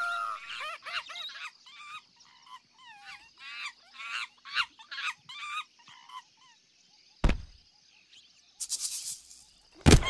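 A cartoon peacock's voice sobbing in a string of short, wavering cries that bend in pitch. A sudden loud thump comes about seven seconds in, and a sharp hit just before the end.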